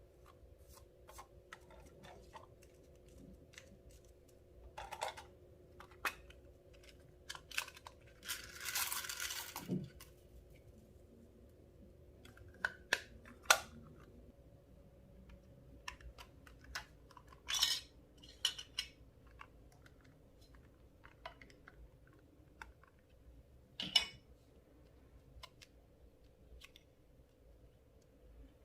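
Clear slime and makeup being handled by hand: scattered soft clicks and taps, a brief crackling rustle about eight seconds in, and a few sharp clicks, over a faint steady hum.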